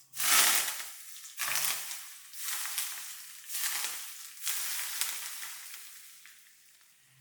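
Food frying in hot oil: five sharp surges of sizzling about a second apart, each dying away, as pieces go into the oil one after another.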